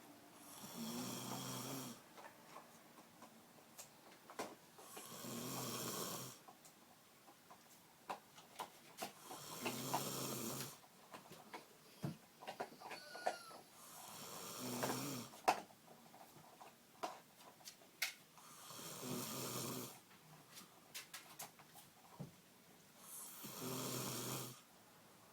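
A woman snoring loudly in deep sleep: six long snores, each about a second and a half, coming evenly about every four and a half seconds.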